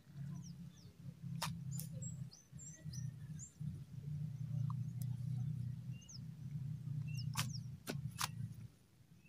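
Handling noise as a tilapia is worked out of a nylon tangle net by hand: a few sharp clicks and rustles over a steady low rumble, with scattered faint high chirps.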